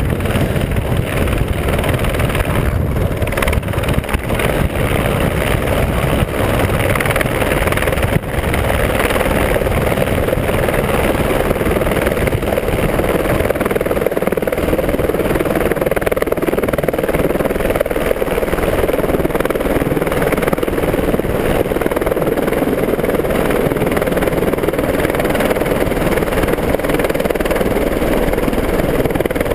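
Light single-engine rescue helicopter coming in and hovering close by, with a loud, steady rotor and turbine noise.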